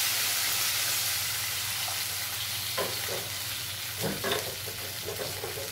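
Water poured into hot mustard oil in a kadai hisses and sizzles loudly, slowly dying down. A few light knocks, from a wooden spatula against the pan, come in the second half.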